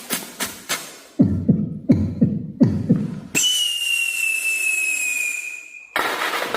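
A run of short sound effects: quick clicks, then four low thuds, then one long high whistle that falls slightly in pitch over the top of a hiss and cuts off suddenly.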